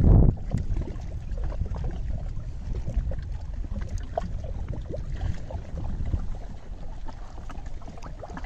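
Wind rumbling on the microphone, with small waves lapping against a rocky lake shore; a loud low bump at the very start.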